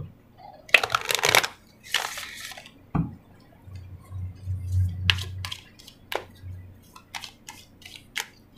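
A deck of oracle cards being handled and shuffled by hand. Bursts of rustling come about a second and two seconds in, then a single knock about three seconds in, then a run of short sharp card clicks and slaps.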